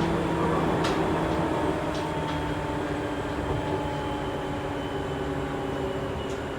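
Seibu 2000-series electric train (field-chopper control, DC traction motors) running, heard from inside a motor car: steady rumble of wheels on rail with a hum of motor and gear tones, and a few sharp clicks.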